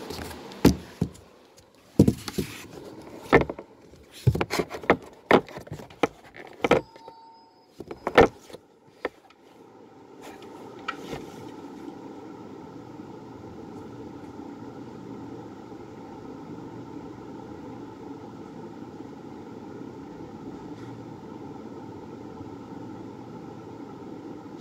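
Handling noise from a handheld phone: a run of sharp knocks and rubs for the first nine seconds or so, then a steady whirring hum once the phone is held still.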